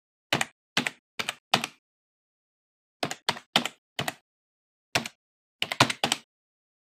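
Typing sound effect of computer keyboard keystrokes: about a dozen sharp key clicks. There are four in the first two seconds, four more around three to four seconds in, then a single one and a quick cluster of three or four near the end, with silence between them.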